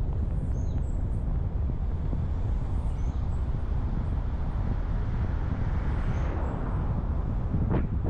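A vehicle driving along a road: a steady low rumble of engine, tyres and wind on the microphone, with faint high chirps over it and a short sharp knock near the end.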